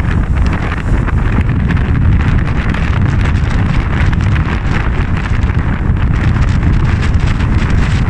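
Strong wind buffeting the microphone with a steady heavy rumble, over rough surf breaking on the shore.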